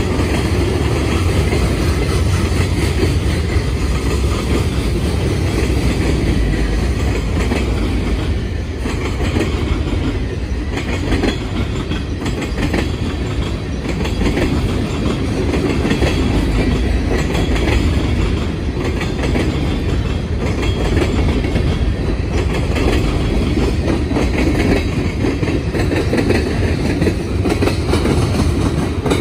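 Freight train cars rolling past close by: a steady rumble of steel wheels on rail with the clickety-clack of wheels over rail joints.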